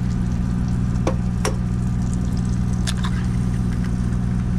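Volvo VNL860 semi truck's diesel engine idling steadily, with a few sharp clicks about a second in and again around three seconds in as brown eggs are cracked over a saucepan on the hot plate.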